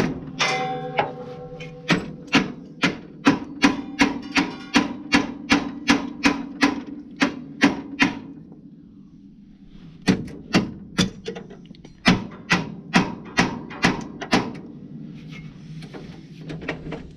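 Hand hammer striking metal on a round baler's pickup, an even run of sharp blows about three a second; the blows pause for about two seconds, then resume for another four seconds or so.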